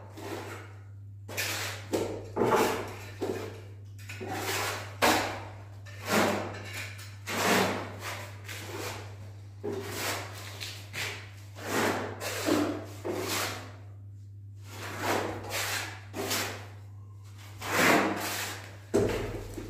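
Plastering trowel scraping grained bark-beetle decorative plaster across the wall, in a series of short rasping strokes about one a second, over a steady low hum.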